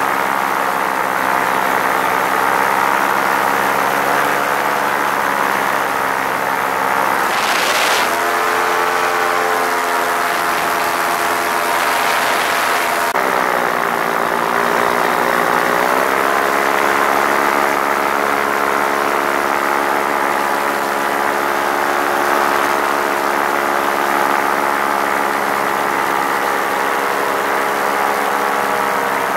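Paramotor engine and propeller running steadily in flight. The throttle changes: the engine pitch shifts about a quarter of the way in, then dips and climbs back about halfway through, with brief gusts of rushing air around those changes.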